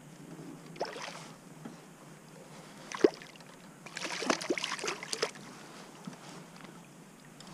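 A hooked white bass thrashing and splashing at the surface beside a kayak for about a second and a half. A sharp knock comes about a second before the splashing.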